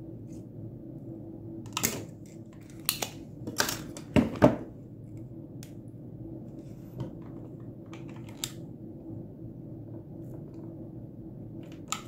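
Sharp clicks and snaps of small metal hand tools working on a circuit board while an old resistor is taken off it: a cluster of about half a dozen between two and five seconds in, the loudest near the middle, and one more later, over a steady low hum.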